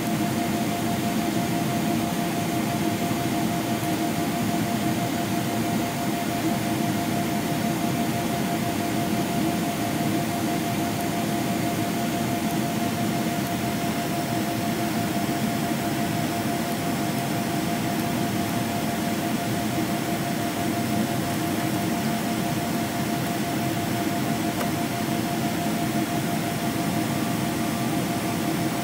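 Steady cabin drone inside a Boeing 777-300ER airliner: an even rush of engine and airflow noise with a faint constant tone running through it.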